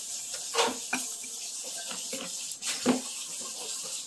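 Small eating sounds at a table: a few short soft knocks and mouth noises from children eating with chopsticks, over a steady background hiss.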